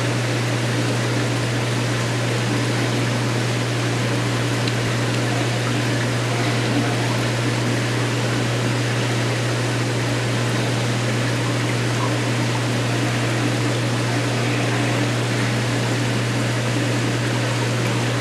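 Aquarium pump running: a steady low hum with a constant hiss of moving water.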